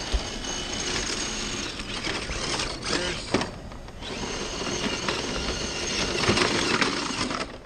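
Scale RC crawler's brushless motor and geared drivetrain whining as the truck climbs over rocks. It pauses briefly about halfway through, with a sharp knock just before the pause, then runs again and stops near the end.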